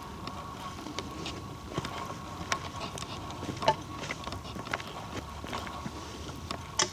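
Footsteps on a forest trail, with irregular crunches and twig snaps about once a second, over a faint steady whine.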